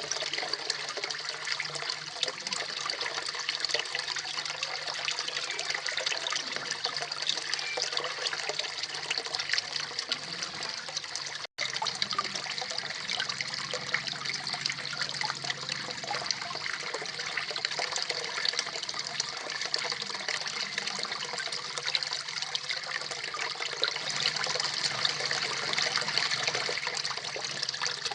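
Small garden waterfall splashing steadily into a koi pond, a dense, even rush of falling water, broken once by a split-second gap about eleven seconds in.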